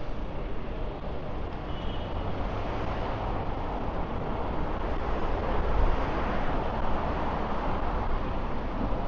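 City street traffic noise: a steady wash of road noise that swells as a vehicle passes, loudest a little past the middle, then eases.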